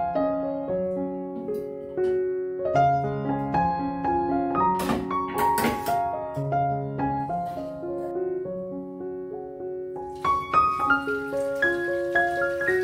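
Soft piano background music, with a few short clicks about five seconds in and again near ten seconds.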